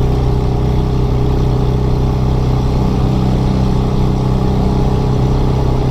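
Polski Fiat 126p's air-cooled two-cylinder 650E engine running at a steady cruise with a failed muffler, giving a loud, steady, low exhaust drone.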